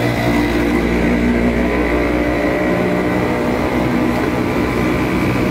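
A motor vehicle engine running close by over a steady wash of roadside traffic noise, its hum fading after the first second or two.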